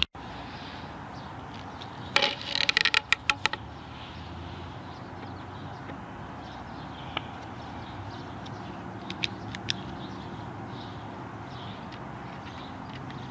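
Handling sounds from a pipe and marker on a scrap 2x4: a quick clatter of light clicks and taps about two seconds in, then a few faint ticks, over steady background noise.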